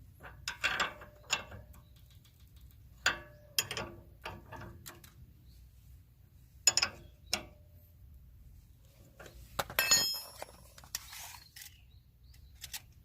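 Hand tools and metal parts clicking and knocking in irregular strokes, with a louder ringing metallic clang about ten seconds in.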